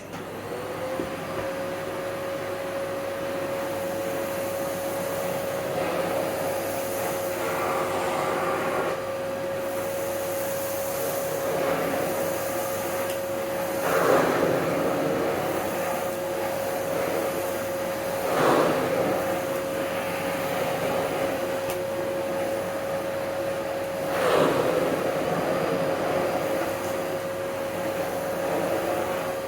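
Hoover Breeze Pets vacuum cleaner switching on and spinning up to a steady motor whine over a rush of air, with a plain non-powered floor head worked over salt-strewn carpet. Three times the airflow briefly swells louder.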